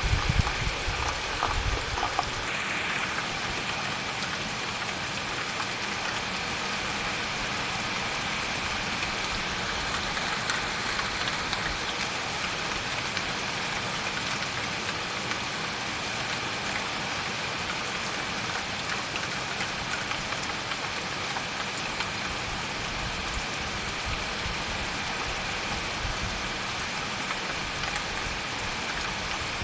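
Steady rain falling, an even hiss that does not change, with a few low bumps in the first couple of seconds.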